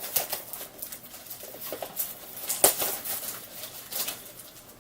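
Packaging crackling and rustling as a blind-box bobblehead package is handled: a string of short crinkles, with a sharper crackle a little past halfway.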